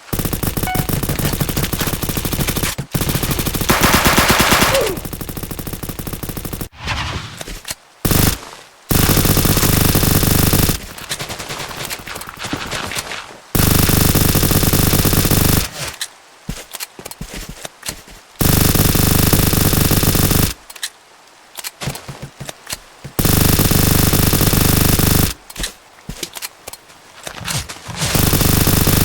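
Airsoft gun firing on full auto in repeated bursts of about two seconds, each a dense, rapid rattle of shots. Quieter patches fall between the bursts, after a longer run of firing at the start.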